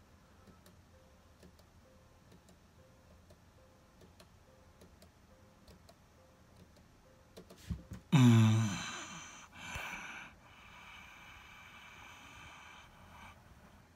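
Near quiet with faint ticks, then about eight seconds in a sudden loud electronic power-down sound whose pitch drops steeply over about a second, a shorter burst after it, and a faint steady hum as the picture fails.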